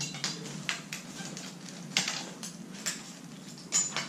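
Irregular light clicks and taps, about two or three a second, of metal tension springs being hooked from the screen fabric into the projector-screen frame.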